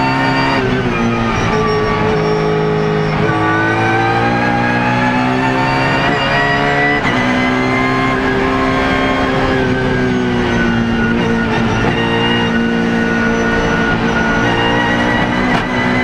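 BMW Z4 GT3 race car's V8 engine heard from inside the cockpit at full race pace, its note climbing and falling with abrupt steps in pitch as it shifts gears, and a long slow fall through the middle of the stretch.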